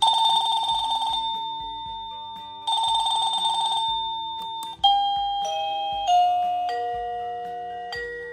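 Ruvo wireless doorbell receiver playing its electronic chimes: a trilling, ring-like tone sounds twice, then a melody of single electronic notes starts about five seconds in.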